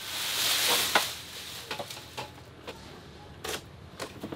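Plastic wrapping rustling as it is pulled off a new flat-screen TV, loudest in the first second, then scattered crinkles and light clicks of the plastic and cardboard packing being handled.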